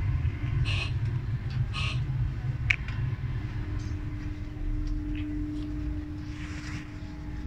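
Inside a Great Western Railway Class 800 train carriage: a steady low rumble with a hum that grows stronger about halfway through. A few brief rustles and clicks come in the first three seconds.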